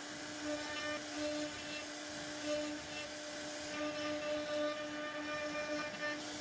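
CNC router spindle running at a steady pitch as its bit carves a relief pattern into a wooden board. The tone swells and eases every half second or so as the cutting load changes.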